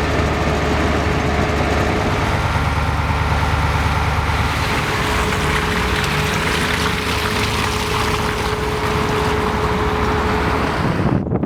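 An engine running steadily, with a low hum and a steady whine, under a rushing noise that grows louder about halfway through. It all cuts off suddenly near the end.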